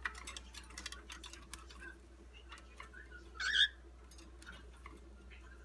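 A cockatiel gives one short, sharp chirp about three and a half seconds in, after a run of light ticks and clicks in the first two seconds.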